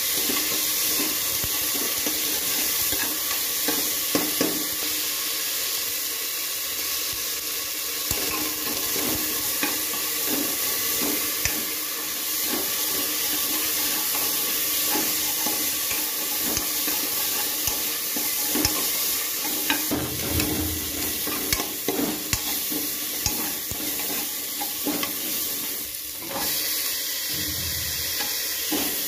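Diced potatoes frying in a pan, sizzling steadily, while a metal spoon scrapes and taps against the pan as they are stirred.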